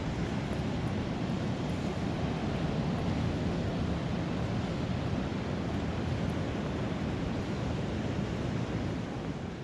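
Ocean surf breaking and washing up the beach as a steady rush of noise, with wind on the microphone. It eases slightly near the end.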